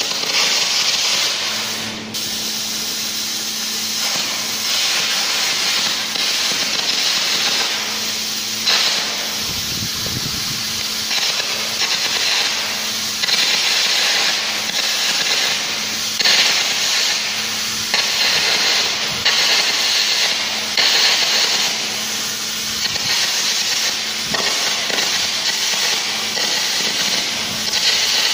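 Arc gouging of a steel plate joint: a loud, continuous crackling hiss of the arc and air jet blowing out molten metal, with small dips and surges every few seconds as the gouge moves along the joint. A faint low hum runs underneath.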